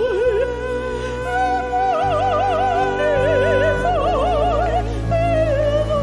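Worship music: a voice sings a wordless line of long held notes with wide vibrato, one after another, over sustained low keyboard chords.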